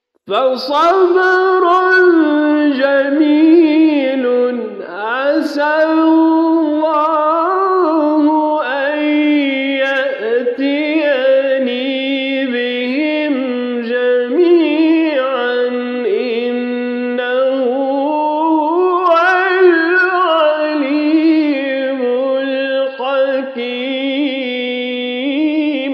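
A man reciting the Quran in the melodic tajweed style: after a brief pause, one long unbroken phrase of ornamented, sliding melody.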